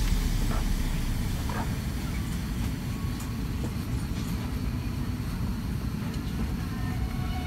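Steady low rumble of airliner cabin noise inside an Airbus A350-900, with a few faint light clicks.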